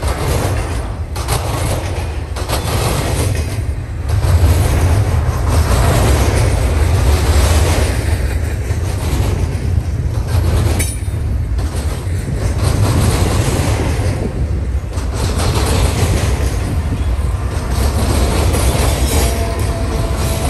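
Intermodal freight train passing close by: steel wheels rumbling and clacking steadily as trailer flatcars and double-stack container cars roll past, the sound dipping briefly every second or two. Near the end the rear diesel locomotive reaches the spot.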